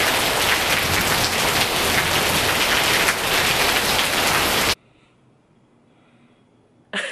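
Heavy rain falling steadily on dense garden foliage, a dense even hiss that cuts off abruptly about four and a half seconds in, leaving only faint room tone.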